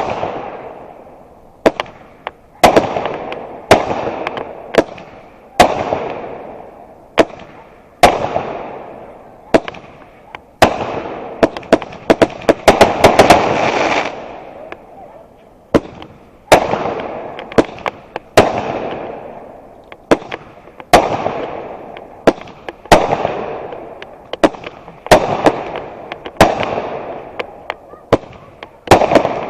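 Fireworks going off in a steady series of loud bangs about one to two seconds apart, each followed by a noisy tail that fades over about a second. About halfway through, a rapid cluster of many bangs comes in quick succession.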